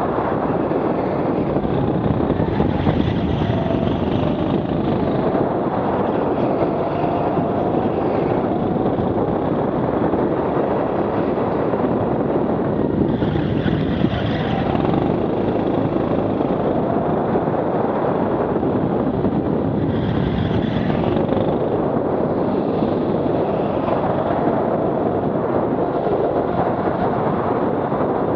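Rental go-kart engine running at speed, heard from a helmet camera with wind rushing over the microphone. The engine note rises and falls through the corners.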